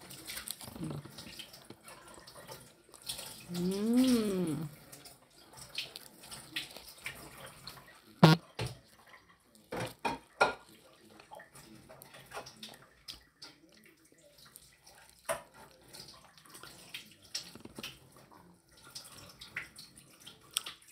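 Close-up eating sounds: chewing and lip smacking on a sticky rice cake (moron), with the banana-leaf wrapper rustling. About four seconds in comes a short hummed 'mmm' that rises and falls in pitch, and a few sharp smacks or clicks come around eight to ten seconds in.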